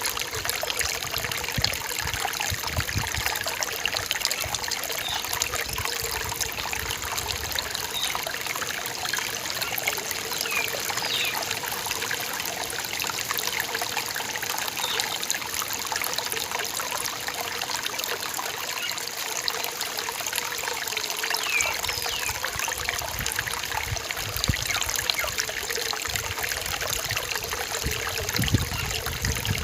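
Small rainforest stream trickling and splashing steadily over rocks, with a few short bird chirps now and then.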